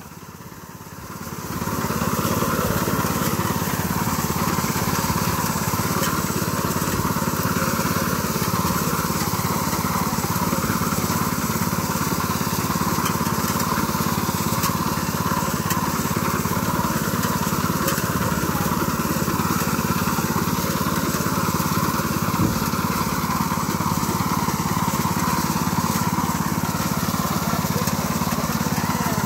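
Walk-behind wheat reaper's small engine running steadily under load as its cutter bar mows standing wheat. The sound comes up over the first two seconds, then holds an even level.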